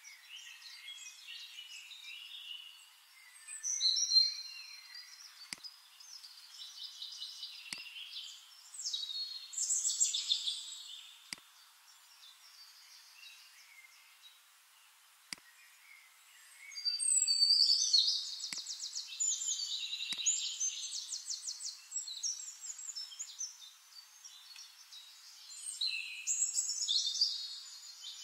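Birds singing: a run of chirps, whistles and rapid trills in bouts, loudest about four seconds in, around ten seconds, from about seventeen to twenty seconds and again near the end, with a few faint sharp clicks now and then.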